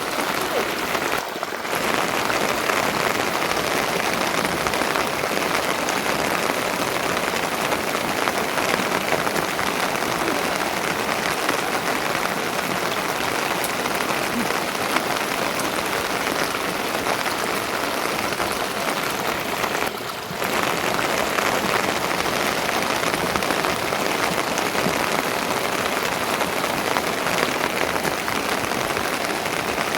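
Steady rain falling, a dense even hiss of drops that dips briefly twice.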